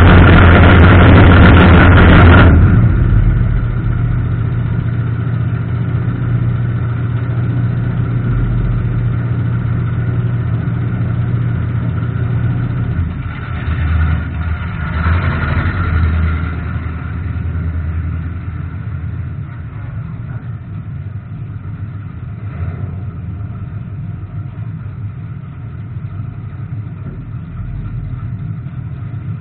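Race car's engine heard from on board, loud for the first couple of seconds, then dropping to a steady idle, with a brief swell of engine noise about halfway through.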